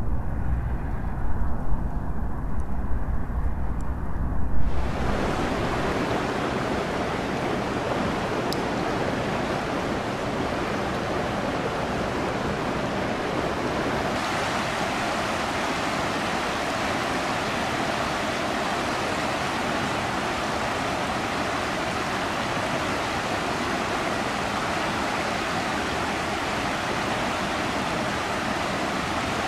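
Low rumble with a few loud bumps, then a sudden change about five seconds in to a steady, even rush of fast-flowing floodwater that runs on unchanged.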